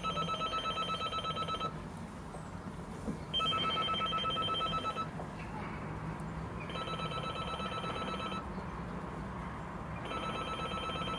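Keypad door-entry intercom panel sounding its call tone: a pulsing electronic ring, four times about three and a half seconds apart, as a flat is rung and nobody has yet answered.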